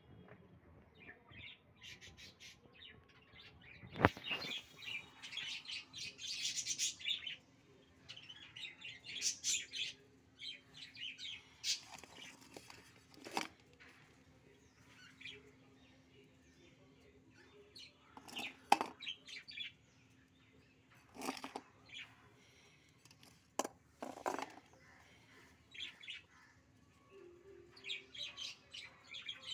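Small birds chirping on and off, with a few sharp knocks, the loudest about four seconds in and again near the middle.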